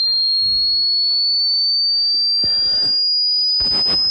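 A single high-pitched pure test tone from a hearing-test sweep, climbing slowly and steadily in pitch.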